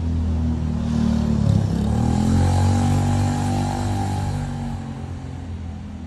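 A motor vehicle's engine on the street, its note dropping about a second and a half in and then climbing as it accelerates away, loudest a couple of seconds in and fading near the end.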